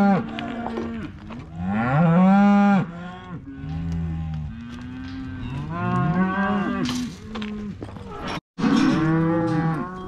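Cattle bawling: many cows and calves mooing over one another in long, overlapping calls. They have just been sorted apart into separate cow and calf pens.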